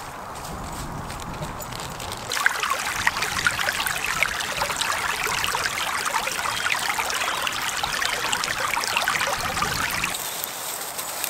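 Small woodland stream trickling and babbling over stones, close and louder from about two seconds in until it cuts off near the end.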